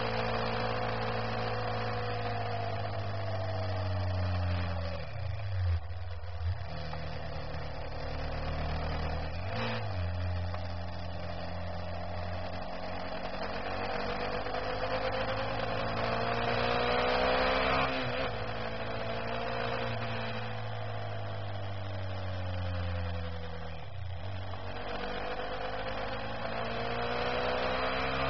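Engine of a vehicle under way at road speed, its pitch climbing slowly and then dropping away about three times as the throttle is eased and gears change, over steady wind and road noise. A short sharp knock sounds about ten seconds in.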